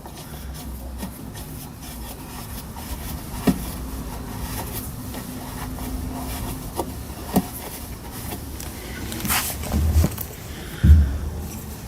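Hand-handling noise while fitting the washing machine's agitator parts and its bolt: light scraping with a few separate knocks and clicks, and two heavier thumps near the end.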